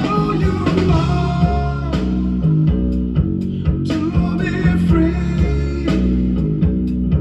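Rock music with guitar and a steady, repeating bass line, being recorded onto a cassette deck.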